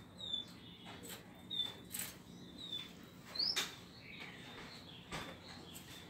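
Small caged birds giving short, high chirps about once a second, with one louder rising chirp about halfway through, among scattered sharp clicks.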